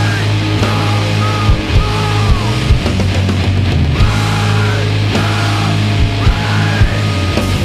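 Loud heavy rock music with a steady bass line and regular drum hits.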